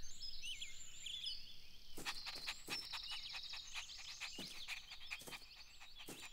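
Faint ambience of birds chirping and twittering. About two seconds in, a run of quick light clicks and taps begins, with a few louder taps scattered through it.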